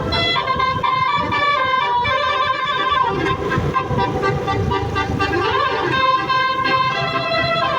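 An 18-note 'telolet basuri' musical bus horn playing a tune of held notes that change pitch in steps, with a short rise-and-fall glide about five and a half seconds in, over a low rumble.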